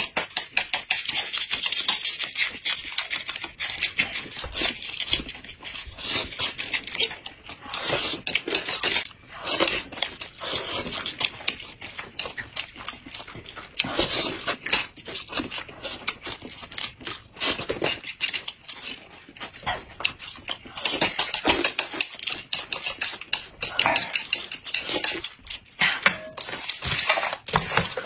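Close-up eating sounds: chewing, with chopsticks and a spoon clicking and scraping against plates and a plastic yogurt cup in a rapid, irregular patter.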